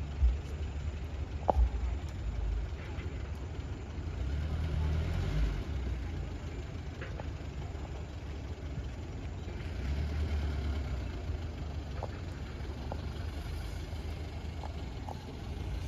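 Tata Safari SUV engine running under load as it works across rough off-road ground, a low rumble that swells twice as it is pushed harder. A few short knocks come in the first couple of seconds.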